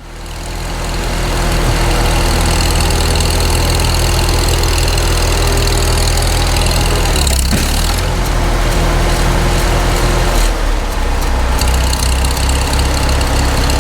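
Farmall Super M tractor's four-cylinder gasoline engine running steadily, its engine note shifting about halfway through.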